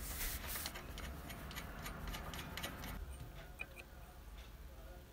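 Light metallic clicks of a ring spanner on the camshaft pulley bolt as the bolt is fitted and turned. The clicks come in a quick irregular run and thin out after about three seconds.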